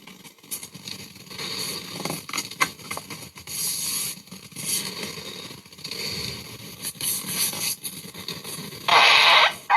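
A run of raspy, crackling fart sound effects of uneven loudness, ending in a loud burst near the end.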